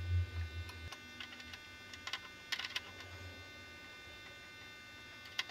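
A low hum that stops about a second in, then a few faint, scattered metal clicks and taps of a wrench working a brake line fitting.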